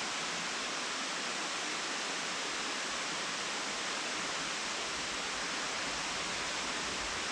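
Waterfall, high after rain, rushing: a steady, even wash of falling water.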